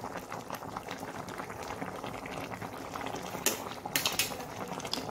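Fish stew with potatoes and greens boiling in a pot: a steady crackle of bubbles popping. A few sharper clicks come about three and a half seconds in.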